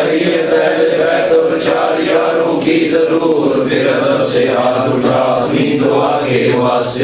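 Men's voices chanting a devotional recitation together without a break, stopping at the very end.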